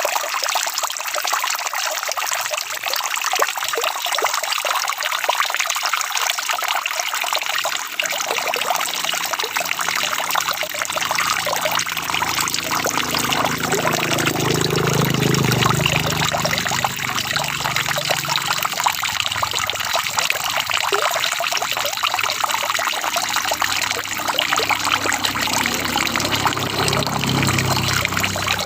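Steady rain, a dense hiss of countless drops with water trickling and running. A low rumble comes in about a third of the way through, swells around the middle and again near the end.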